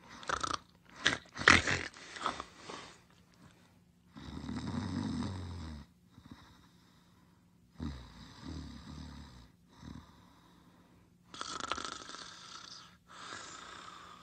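Snoring sound effect: slow, low rattling snores a few seconds apart, alternating with breathy exhales, after a few sharp crackles in the first three seconds.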